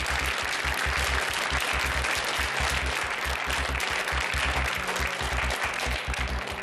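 Studio audience applauding a correct answer, over the game show's background music with a low pulsing beat.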